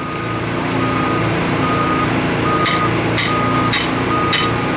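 Sledgehammer blows driving a steel hinge pin through the holes of two steel-clad concrete barrier segments: four ringing metal-on-metal strikes about half a second apart, starting a little past halfway. Under them an engine runs steadily and a vehicle's backup alarm beeps about once a second.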